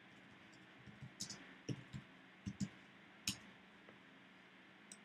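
Computer keyboard keystrokes: a few light, separate clicks spread between about one and three and a half seconds in, typing a short name.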